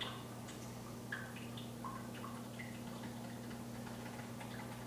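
A cat pawing at a window pane, a few faint, short taps on the glass, over a steady low hum.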